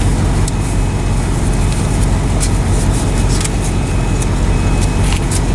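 Vehicle engine idling with a steady low rumble, heard from inside the cab, with a few light clicks scattered through.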